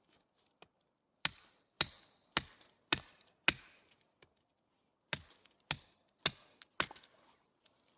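Wood being chopped with a blade: a run of five sharp chopping strokes about half a second apart, a pause of about a second and a half, then four more.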